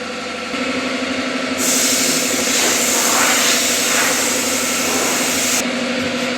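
A steady engine hum, with a loud hiss of compressed air from about a second and a half in. The hiss lasts about four seconds and cuts off sharply.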